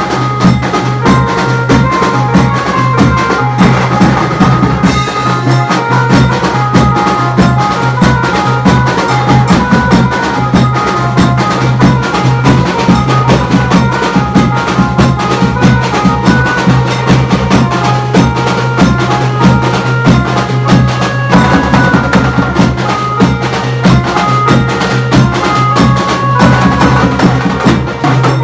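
Loud wedding band music: drums beating fast and steadily under a repeating melody, with a constant low hum underneath.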